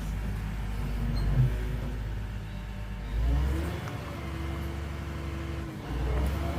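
Excavator's diesel engine running under hydraulic load as it works. The engine note surges about three seconds in with a steady whine, dips briefly, then surges again near the end.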